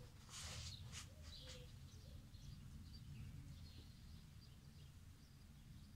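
Quiet outdoor ambience: a steady low rumble with faint, distant birds chirping now and then.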